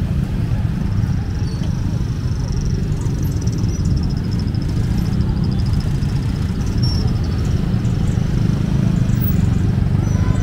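Busy street traffic of motorcycles and motorcycle tricycles running at low speed in a crowd, a steady low rumble without a break.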